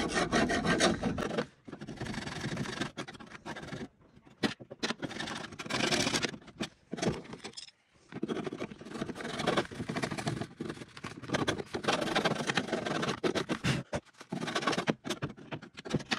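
Flat-blade screwdriver scraping caked dirt and dust off the window glass's guide rail inside a Suzuki Mehran door, in rough strokes broken by short pauses. The rail has gone dry and clogged with dust and mud, which makes the glass stiff to wind up and down.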